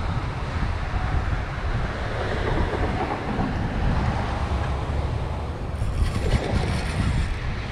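Wind buffeting the microphone in a steady low rumble, joined about six seconds in by a quick run of fine clicking.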